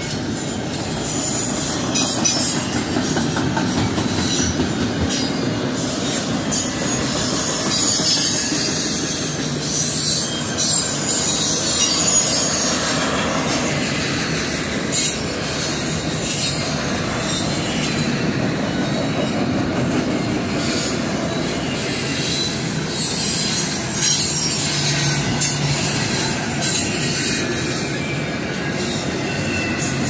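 Norfolk Southern double-stack intermodal freight train rolling past: a steady loud rumble and rattle of the well cars' wheels on the rails, with thin high-pitched wheel squeal coming and going and scattered clacks.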